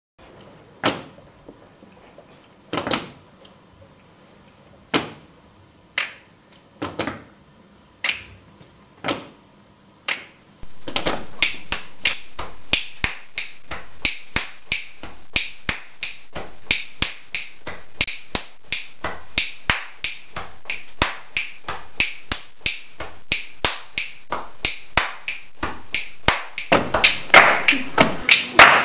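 Body percussion. First come single finger snaps about a second apart. From about ten seconds in, a quick, even rhythm of chest slaps, finger snaps and hand claps takes over, the basic chest–snap–clap–snap pattern, and it grows louder near the end.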